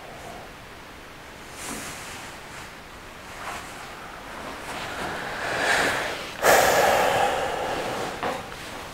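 A person breathing audibly: a few soft breaths, then a loud, long breath out that starts suddenly about six and a half seconds in and lasts nearly two seconds.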